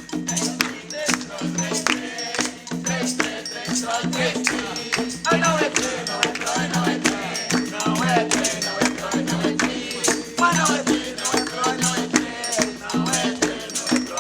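Coco de roda music: a shaker rattling fast on a steady beat over a repeating low drum pattern, with singing voices coming in about a third of the way through.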